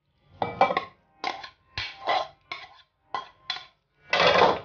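A plastic spoon scraping cooked macaroni out of a plastic container into a glass bowl. It makes a series of short scrapes and knocks, then one longer scrape near the end.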